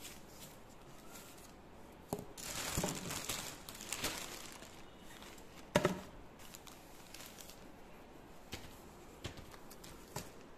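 Plastic packaging crinkling for a couple of seconds as a plastic-wrapped roll of window film is handled and slid out of a cardboard tube, then a single sharp knock about halfway through, followed by a few faint taps.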